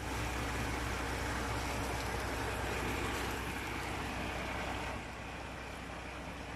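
A tractor-trailer truck going by on the highway: a steady low engine drone under a broad rush of tyre and road noise, dropping a little in loudness about five seconds in.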